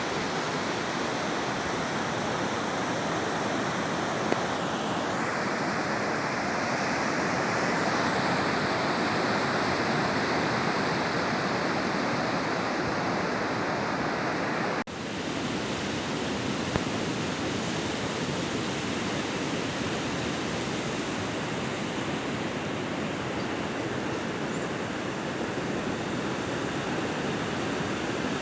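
Ocean surf on a sandy beach: a steady wash of breaking waves. About halfway through there is a sudden brief drop where the recording cuts, then the surf carries on.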